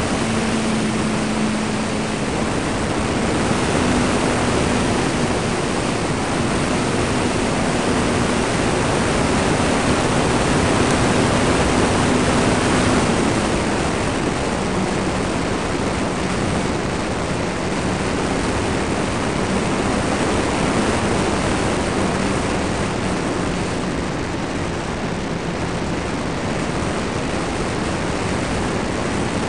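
Onboard sound of a ParkZone T-28 Trojan RC plane in flight: steady wind rush over the belly-mounted camera, with the electric motor and propeller humming a single tone underneath. The tone steps up slightly about four seconds in and drops lower about thirteen seconds in.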